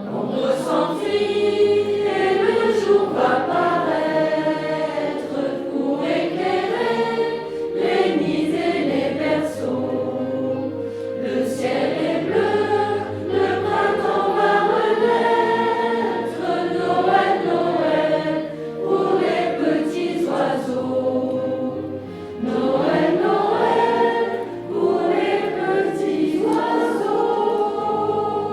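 A choir singing a French Christmas song over a steady low accompaniment, with phrases breaking briefly about two-thirds of the way through.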